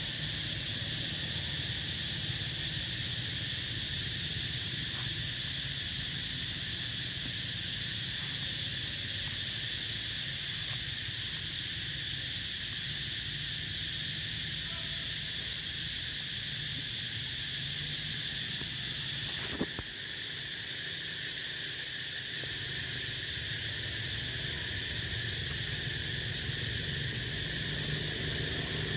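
Steady, shrill chorus of insects holding unbroken high notes, over a low steady rumble; a single sharp click about twenty seconds in.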